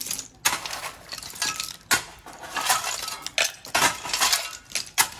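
A shovel blade scraping into and lifting loose rubble of broken shards, the fragments clinking and rattling against one another with each scoop. There are repeated crunching scoops, roughly one a second.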